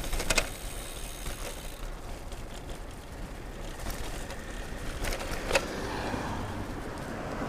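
Bicycle riding noise: wind rumbling on the camera microphone over a steady road hiss, with two sharp clicks, one in the first half second and one about five and a half seconds in.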